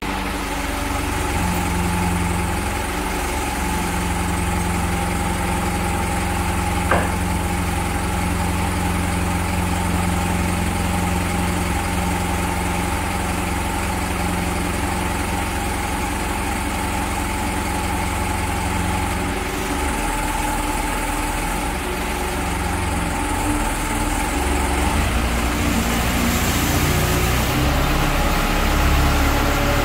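An engine idling steadily, a little louder near the end, with a single short click about seven seconds in.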